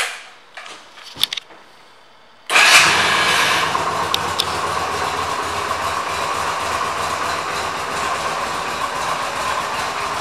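A few light clicks, then about two and a half seconds in the Yamaha V Star 250's air-cooled V-twin starts at once and settles into a steady idle.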